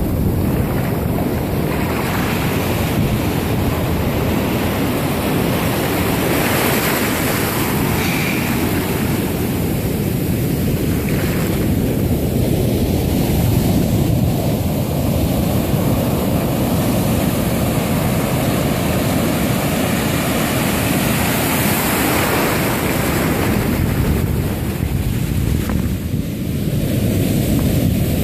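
Ocean surf breaking and washing up the shore in foam, a loud, steady rushing that swells and eases as each wave comes in.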